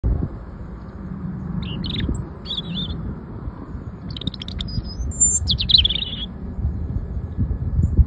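European robin singing: two short phrases of high, thin warbling and whistled notes, a few seconds apart, over a low rumble.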